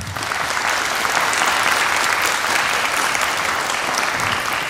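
Audience applauding at the end of a stage performance: dense clapping that comes in suddenly and holds steady.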